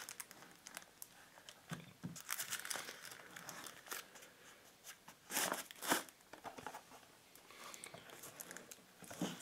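Thin plastic wrapping crinkling and rustling as a wrapped speaker is handled and lifted out of its cardboard box, in scattered bursts, loudest around two seconds in and again around five to six seconds in.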